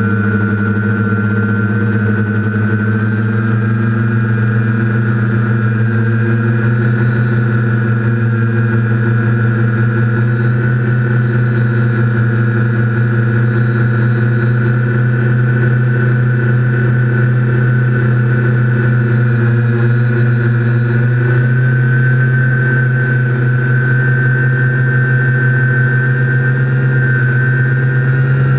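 TBS Discovery quadcopter's brushless motors and propellers buzzing steadily in flight, a low hum with a high whine above it, the pitch wavering slightly as the throttle changes. Picked up by the GoPro mounted on the drone.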